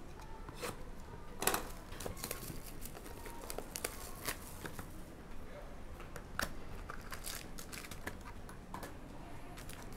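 Plastic shrink-wrap crinkling and tearing as it is pulled off a sealed Obsidian basketball card hobby box and the box is opened, with sharp crackles scattered through it.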